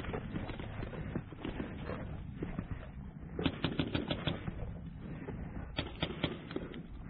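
Magfed paintball marker firing in two quick strings of shots: about seven rapid pops, then about five more a couple of seconds later.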